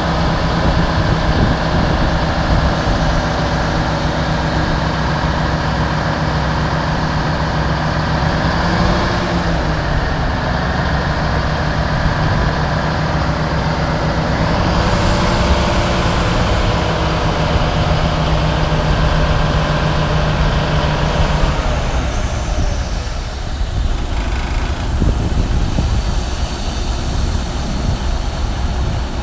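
Heavy diesel engines running steadily as a log loader lifts logs onto an idling log truck. The engine note rises and settles briefly twice as the machine takes load, with a short hiss of air about halfway through. The steady drone drops away about three-quarters of the way through, leaving a lower rumble.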